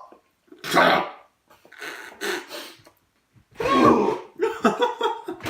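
A person coughing and clearing their throat in several short bursts, with a few vocal noises mixed in.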